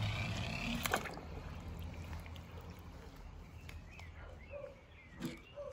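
Faint steady outdoor background noise, broken by a sharp knock about a second in and a weaker one near the end, with a few faint high chirps between them.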